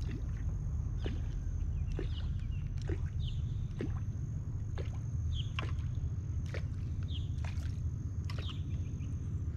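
Outdoor ambience: a steady low rumble, a thin high steady whine, and short chirps about once a second.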